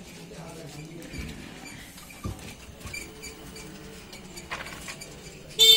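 Light scraping and clicking of a metal ladle and blade against a mixing bowl and plate as chotpoti is stirred and its chopped onion topping is handled. One short, sharp high-pitched sound near the end is the loudest thing.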